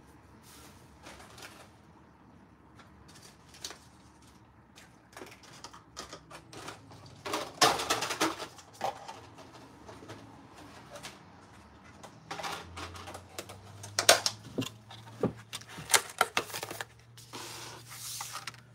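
Clicks, taps and clatter of plastic paint bottles and a plastic tray being handled and set down on a tabletop. There is a cluster of knocks about a third of the way in, then a busier run of clicks over the second half, ending in a short scrape.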